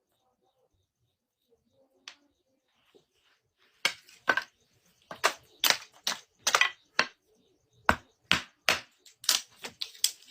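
Wood being chopped with a blade: a quick run of sharp chopping strikes, about two to three a second, starting about four seconds in after a quiet stretch.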